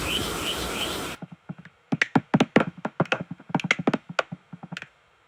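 A steady noisy ambience with a high chirp repeating about twice a second cuts off abruptly about a second in. It is followed by a quick, irregular run of sharp taps and knocks lasting about three seconds.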